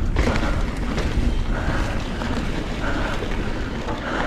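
Wind buffeting an action camera's microphone, with the mountain bike's knobby tyres rolling over a dirt singletrack as it rides along. A steady, loud, rumbling rush.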